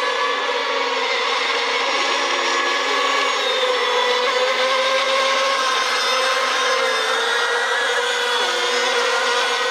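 Several radio-controlled racing model boats running together, their motors whining at high revs in overlapping pitches that waver up and down.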